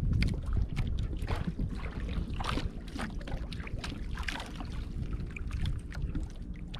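Wind buffeting the microphone over water lapping and slapping irregularly against the hull of a small wooden outrigger canoe.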